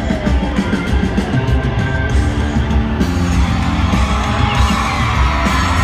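Live band playing a loud country-rock song, a steady drum beat under guitars, with the audience whooping and yelling over it.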